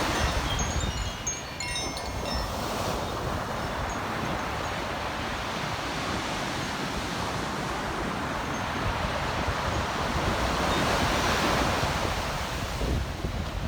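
Ocean surf washing on a beach, swelling and easing. A Koshi chime rings a few tinkling notes in the first two seconds.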